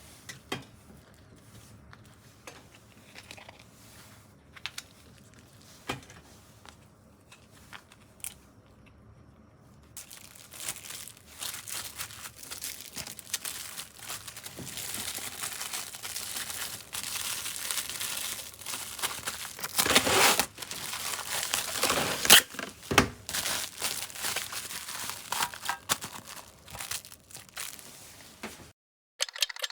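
Crinkling and rustling of a thin, crackly material being handled. Faint clicks at first, then continuous crinkling from about a third of the way in, with a few louder crackles about two-thirds through.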